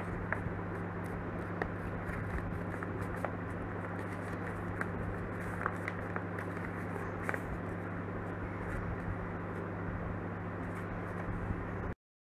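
Colour-sheet paper being folded and creased by hand: scattered faint crinkles and taps over a steady low hum and hiss. The sound cuts out briefly near the end.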